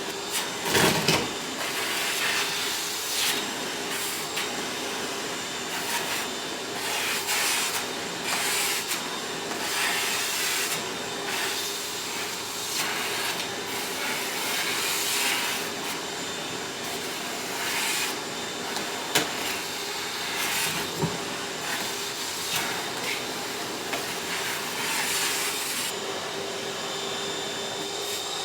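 Vacuum cleaner running steadily with its motor whine, with irregular crackling and rattling of debris being sucked up. There are a few sharper knocks near the start and again about two-thirds of the way in.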